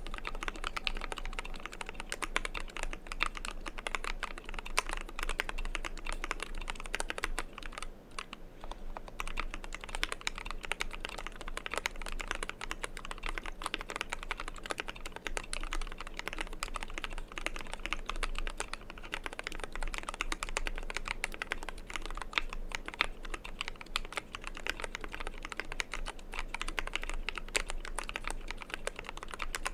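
Continuous fast typing on a 60% mechanical keyboard built from a KBDfans Tofu case and Zeal60 PCB, with lubed Tealios V2 linear switches, imsto PBT keycaps and EVA foam under the PCB: a steady stream of key clacks, with a short lull about eight seconds in.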